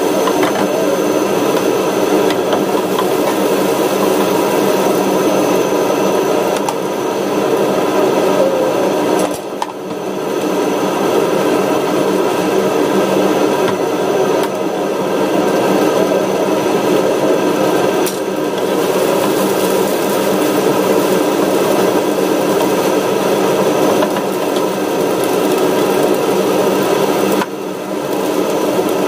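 Chopped garlic and chilies frying in oil in a non-stick frying pan on a gas burner, over a steady mechanical hum. The noise dips briefly about nine and a half seconds in and again near the end.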